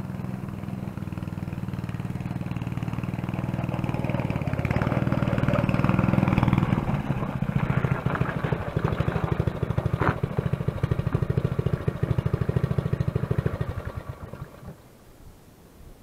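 Small single-cylinder petrol engine of a garden tiller converted into a ride-on tractor, running as it drives closer, growing louder, then firing in a steady even beat. The engine dies away about two seconds before the end.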